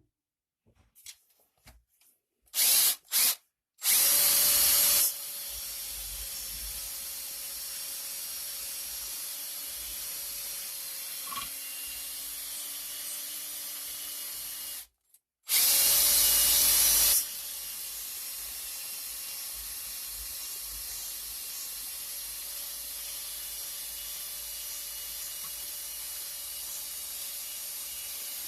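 Cordless drill scrubbing mineral stains in a toilet bowl. Two quick trigger taps are followed by a loud start that settles into a steady motor hum. It stops briefly about halfway through, then restarts loud and settles again.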